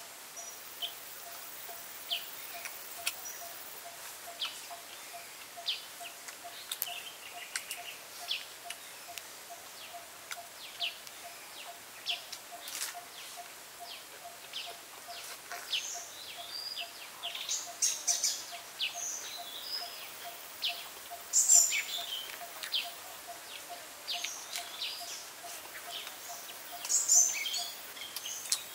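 Close-up eating sounds: chewing, lip-smacking and crunchy bites of grilled duck wrapped in fresh leaves, in short clicks, with the loudest bites about two-thirds of the way in and near the end. A bird repeats one short low note a few times a second in the background.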